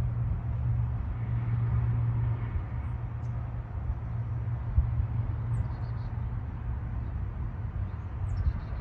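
An engine running at a steady idle: a low, steady hum over rumble. A couple of faint high chirps come through, one past halfway and one near the end.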